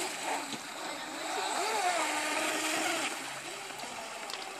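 Electric motor of a small carbon-hulled RC speedboat whining as the boat runs across the water, its pitch rising and falling with the throttle, over a steady hiss.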